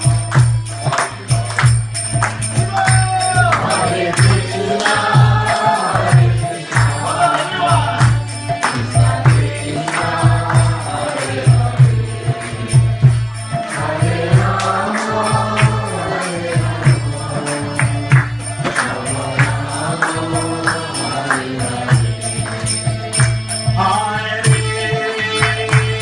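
Devotional kirtan: a group of voices chanting together over a steady drum beat and ringing hand cymbals.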